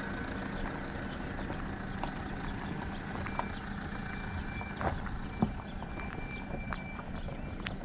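Tata Harrier's diesel engine running as the SUV drives slowly over a rough dirt track, with scattered clicks and a couple of louder knocks from the tyres rolling over loose stones and gravel.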